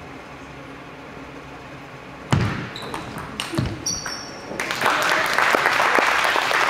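Table tennis rally: a sudden loud thump about two seconds in, then a series of sharp clicks of the ball on bats and table. From about four and a half seconds in, the crowd applauds the point.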